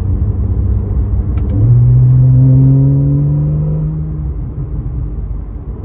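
Porsche 911 Carrera S (991.1) 3.8-litre flat-six engine accelerating: about one and a half seconds in it gets suddenly louder and climbs steadily in pitch for a couple of seconds, then eases off and quietens.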